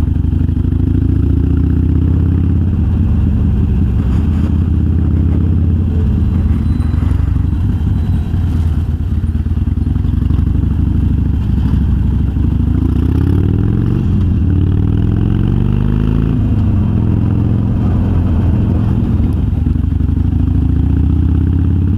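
A Harley-Davidson Sportster's air-cooled V-twin runs under way through Vance & Hines Twin Slash 3-inch slip-on mufflers with quiet baffles. The engine note rises in pitch several times as the bike accelerates and shifts up, and settles back in between.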